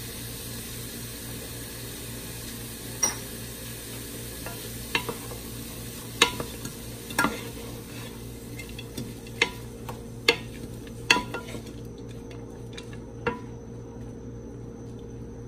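Onions, peppers and jalapeños sizzling in a square copper-coloured skillet while a wooden spatula stirs them, with about eight scattered knocks and scrapes of the spatula against the pan.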